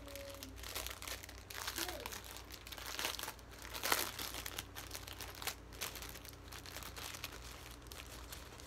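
Thin clear plastic bag of stickers crinkling in irregular crackles as it is handled and opened, loudest about four seconds in.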